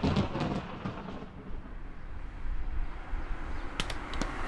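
Inflatable thunder sticks banged together: a quick run of hollow bangs at the start that dies away within about a second. A few sharp clicks follow near the end.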